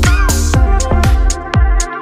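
Electronic dance music with a steady kick-drum beat and hi-hats.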